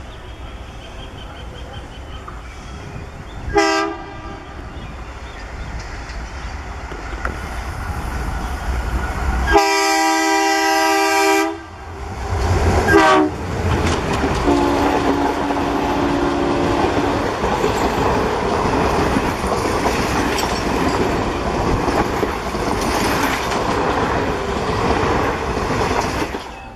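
Diesel locomotive hauling a passenger train, sounding its horn: a short blast about four seconds in, a long blast near ten seconds, then short toots. The engine and train noise grow louder as it nears, and the coaches pass with a steady rolling clatter of wheels on rails that cuts off just before the end.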